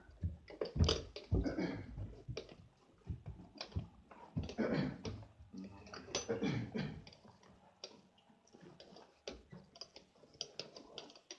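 Footsteps climbing a house's stairs: an uneven series of soft knocks and clicks.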